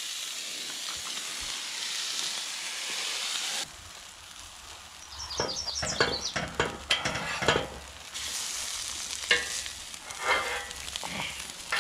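Quesadilla with chicken sizzling on a hot flat-top camp griddle. A steady sizzle drops off abruptly a few seconds in, then a metal spatula scrapes and clicks against the griddle plate in quick strokes. The sizzle returns with a few more scrapes near the end.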